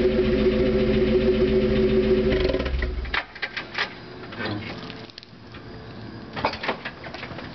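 1994 Mazda Miata's 1.8-litre four-cylinder idling steadily through a Flowmaster 44 muffler, then stopping about three seconds in. A few scattered clicks and knocks follow.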